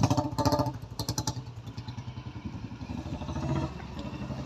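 An engine running steadily with an evenly spaced putter, and a few brief clatters in the first second and a half.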